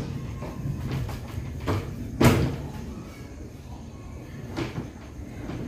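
PSD loudspeaker cabinets knocking together as they are shifted into place on a stack: a few short knocks, the loudest about two seconds in.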